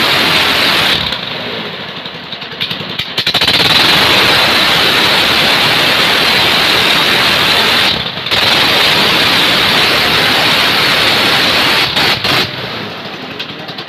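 Small gasoline ketinting (longtail boat) engine running hard and driving a frame-mounted propeller, a loud, rough rushing noise. It eases off about a second in, dips briefly in the middle, and falls off again near the end.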